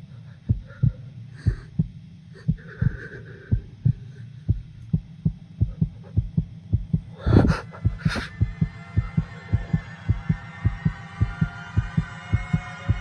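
Heartbeat sound effect in a film soundtrack: deep paired thumps about once a second that quicken to about three beats a second after two short hissing hits past the middle. With the second hit a steady chord of several held tones comes in under the beats.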